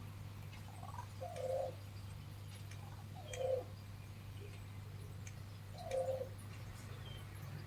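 A crow giving a soft, low call three times, each short and about two and a half seconds apart, instead of cawing. A steady low hum runs underneath.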